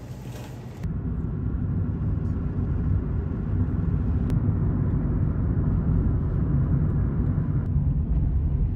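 Steady low rumble of road and engine noise inside a moving car's cabin, starting abruptly about a second in.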